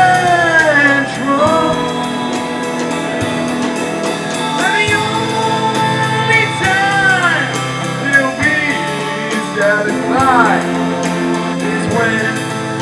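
Live rock band playing: a male singer holds and bends long notes over drums with steady cymbal ticks and guitars.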